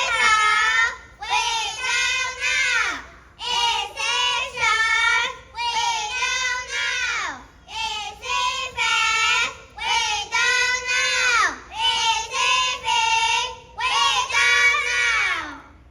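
A high voice singing a tune in short phrases about a second long, several of them ending in a downward slide of pitch.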